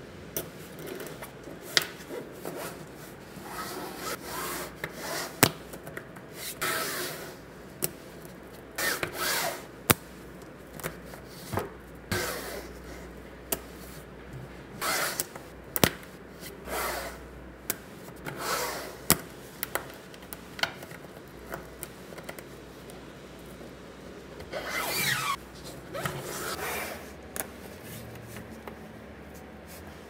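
Small magnetic balls clicking sharply as they snap together, a click every second or two, between stretches of rattling and rubbing as the rows of balls are rolled and pushed into a flat sheet on a tabletop.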